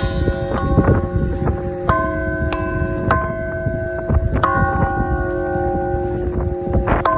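Large bronze bell struck again and again with a wooden mallet at uneven intervals, each strike ringing on in several overlapping tones that carry under the next.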